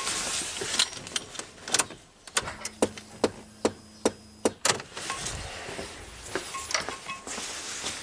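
Electric fuel pump priming with the key on, running as a steady low hum for about two seconds in the middle, building fuel rail pressure before an injector is pulsed. Over the hum comes a rapid, even run of clicks, about five a second, with scattered clicks and knocks before and after.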